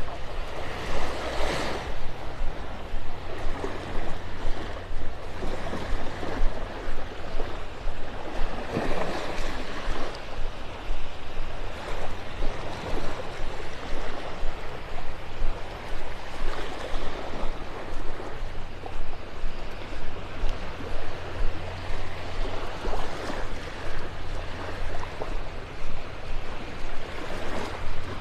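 Small waves washing and lapping in shallow water at the beach, with wind rumbling on the microphone.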